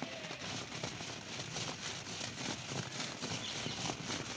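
Freshly roasted litti dough balls tumbling and knocking together inside a cotton gamchha towel as it is shaken, with the cloth rustling: the shaking knocks off the cow-dung ash from roasting. The knocks and rustles are soft and irregular and keep going without a break.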